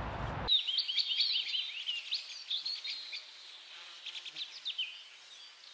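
Small birds chirping and twittering: many quick, high rising and falling chirps that thin out and fade toward the end.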